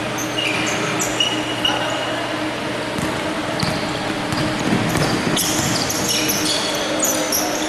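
Basketball game play on a hardwood gym floor: sneakers squeak in short high chirps and the ball bounces as players run the court, over the echo of the hall. The squeaks come thickest in the last few seconds.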